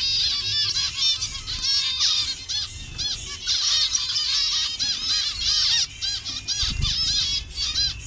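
A colony of zebra finches calling, many short calls overlapping in a dense, unbroken chatter. A brief low thump comes a little before the end.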